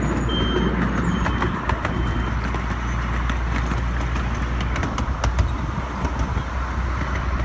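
Ride-on miniature train running along its track: a steady low rumble with a few sharp clicks. A level-crossing signal beeps a few times in the first second and a half, then stops.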